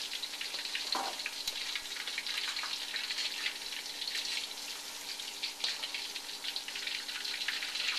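Flour-and-cornstarch-battered shrimp deep-frying in hot oil in a wok: a steady crackling sizzle full of small pops. This is the shrimp's first fry, before a second fry in hotter oil to crisp them.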